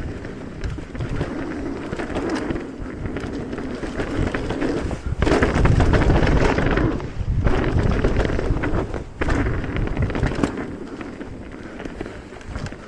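Mountain bike riding down a dirt trail: tyres rolling over the ground and wind on the microphone, with scattered knocks over bumps, loudest a few seconds in.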